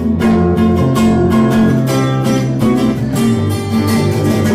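Two acoustic guitars strummed together in a steady rhythm, an instrumental passage with no singing.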